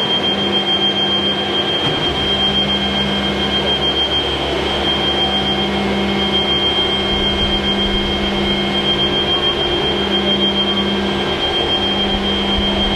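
Ground support machinery for Avro Vulcan XL426 running steadily: an even drone with a constant high-pitched whine over a low hum.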